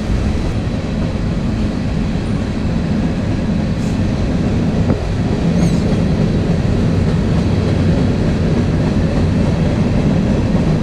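Steady low rumble of a vehicle driving on the road.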